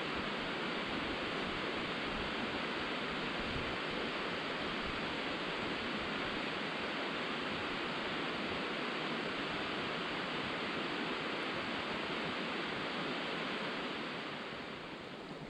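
Steady rushing of flowing water, easing off near the end.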